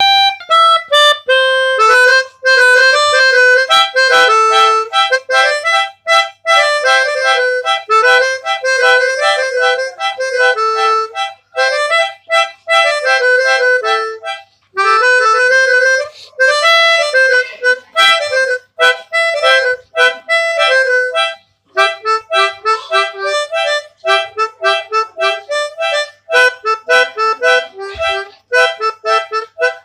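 Basuri telolet multi-tone horn playing a fast, reedy melody, notes changing several times a second, with a few short pauses between phrases.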